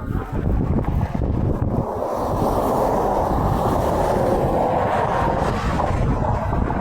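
Steady rush of interstate highway traffic, the tyre and engine noise of passing trucks, with wind buffeting the microphone.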